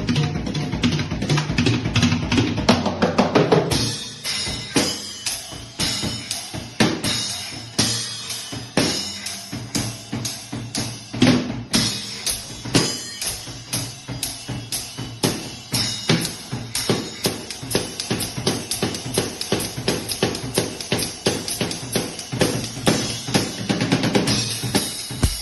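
Drum kit playing a steady groove of bass drum and snare strokes, with a busier fill in the first few seconds and again near the end.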